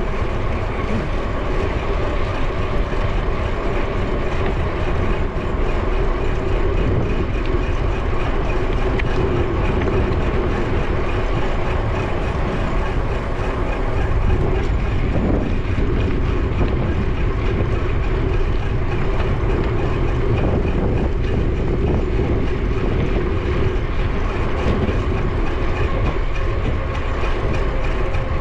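Wind rushing over an action camera's microphone on a moving bicycle, with a steady hum from the tyres and drivetrain rolling along the paved path.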